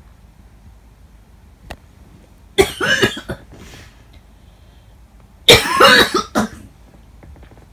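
A person gagging twice at the stench of a cat's fresh droppings: two loud, rough retches about three seconds apart, each lasting under a second.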